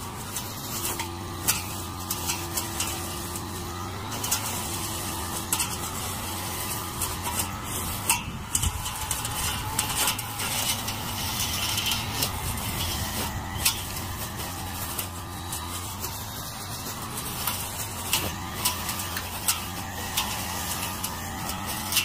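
Backpack brush cutter with a metal blade running steadily while cutting lawn grass, with scattered sharp clicks and ticks throughout.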